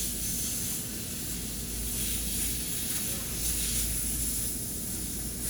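Steady hissing noise, brightest in the high range, over a low steady hum.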